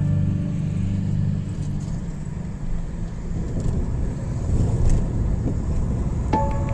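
Low, steady engine and road rumble heard from inside a moving car. Background music with a repeating high note comes back in just before the end.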